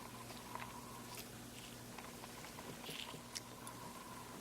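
Faint scattered clicks and taps of small plastic camera lens parts being handled and fitted together, over a faint steady hum.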